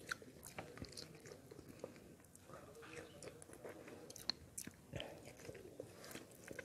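Faint close-up wet eating sounds: a person biting, chewing and sucking soft ripe yellow fruit, with scattered irregular mouth smacks and clicks.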